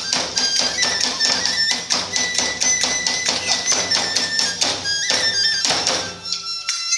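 Iwami kagura festival music: fast, dense drumming with clashing small hand cymbals under a high bamboo flute melody. It breaks off at the very end.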